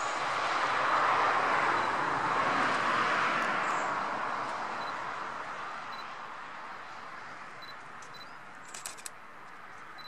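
A car passing on the road, its tyre noise swelling over the first second and slowly fading away over several seconds. Near the end comes a quick burst of camera shutter clicks from the Canon M5.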